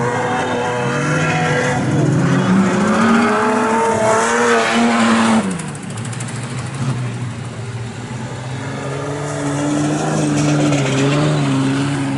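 Several street stock sedans' engines running and revving as they lap a dirt speedway, their pitches rising and falling together. About five and a half seconds in, the sound cuts suddenly to a quieter, steadier engine note that builds again near the end.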